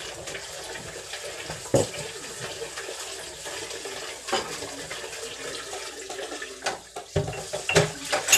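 Kitchen tap running into a sink as someone washes up, with a few sharp knocks from things handled at the sink, the loudest near the end.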